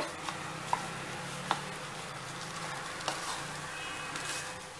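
Wooden spatula stirring a thick, cooking coconut-and-sugar mixture in a non-stick kadhai, with a few light taps of the spatula against the pan over a steady soft sizzle.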